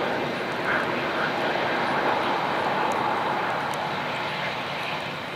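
Airbus A320-200 airliner's jet engines running at low taxi power as it turns slowly on the wet runway: a steady rushing whine, easing slightly near the end.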